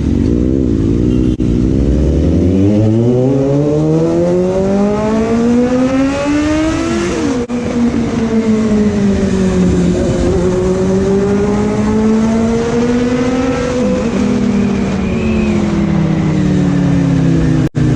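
Inline-four sport motorcycle engine under acceleration. The revs climb steadily for several seconds, drop sharply at a gear change about seven seconds in, then hold and rise again until another shift about fourteen seconds in, and fall away near the end.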